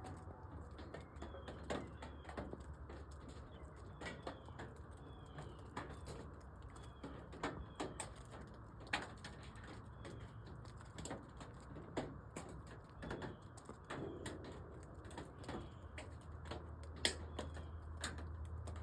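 Small birds giving short, falling chirps, over a scatter of irregular sharp clicks and a low steady hum.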